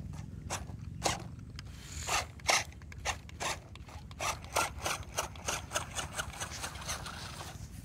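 Toy RC rock-crawler trucks driving over loose sand: a steady low motor drone under short scraping bursts from the tyres in the sand. The bursts are scattered at first and come about four or five a second in the second half.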